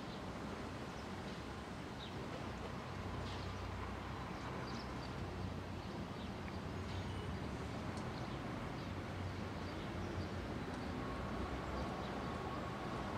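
Steady low outdoor background rumble, with faint scattered bird chirps.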